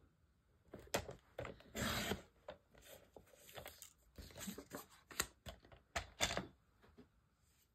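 Fiskars paper trimmer cutting a sheet of patterned paper, then the paper slid off and the trimmer shifted across the desk: scattered clicks and rubbing, scraping noises of paper and plastic.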